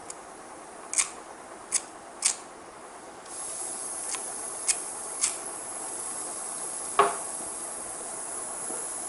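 Radioshack butane soldering iron being lit: a few sharp clicks from the lighter, then about three seconds in the released butane starts hissing steadily and keeps on, with more clicks, the loudest about seven seconds in. The gas is burning as an open flame outside the tip instead of inside the catalyst, so the iron is not working correctly.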